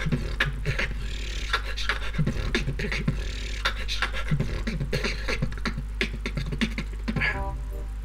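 Beatboxing: a fast rhythm of mouth-made kick, snare and hi-hat clicks, with breath sounds in between. A short melody comes in near the end.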